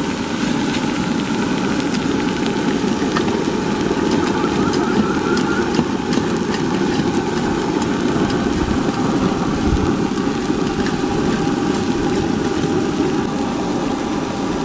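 Whole masala-coated fish frying in oil on a hot flat iron tawa over a gas burner: a steady rushing noise with faint scattered crackles.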